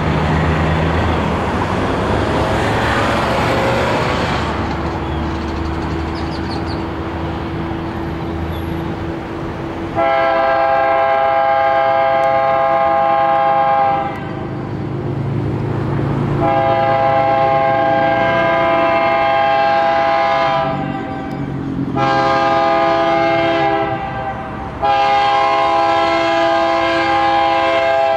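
Diesel freight locomotive approaching with its engine running, then its multi-note air horn sounds four blasts about ten seconds in: long, long, short, long, the standard grade-crossing signal.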